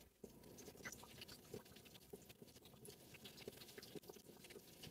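Near silence, with faint, scattered light ticks and patters.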